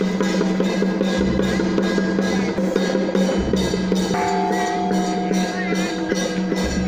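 Temple-procession music with a quick, even percussion beat over a sustained low drone and occasional deep drum thumps; a higher held note comes in about four seconds in.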